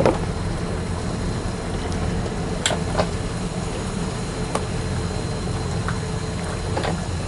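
Steady low mechanical hum with a few light clicks scattered through it.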